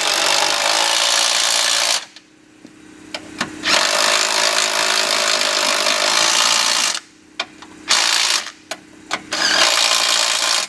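Cordless impact wrench hammering in runs while tightening the strut top-mount nuts: a two-second run, a three-second run, then two short bursts near the end, with small clicks between them.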